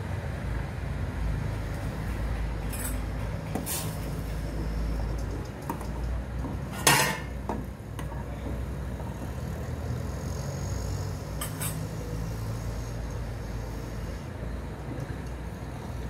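Coconut-based tomato curry boiling in a steel pot on a gas burner, a steady low rumble, with a few clinks of a spoon against the pot as it is stirred, the loudest about seven seconds in.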